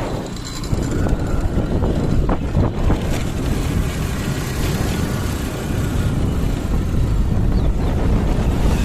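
Wind buffeting the microphone: a steady, loud rumbling noise outdoors.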